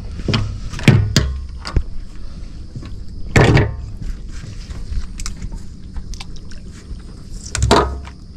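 A run of knocks and thuds from handling gear at a boat's bait well, the two loudest about three and a half seconds in and near the end, over a steady low rumble.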